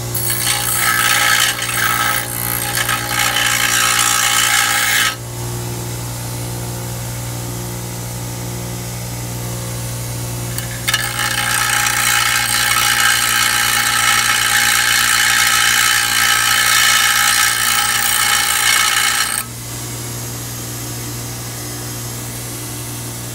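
A 6-inch, 1/2 HP bench grinder running with a steady hum while a steel drill bit is held to its wheel to sharpen it. There are two bouts of grinding, about five and about eight seconds long, with the motor humming on its own between and after them.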